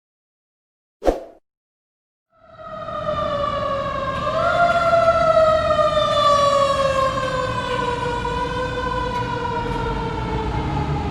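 A single sharp knock, then after a short silence a fire truck siren starts wailing, its pitch slowly falling after a step up, over a low engine rumble.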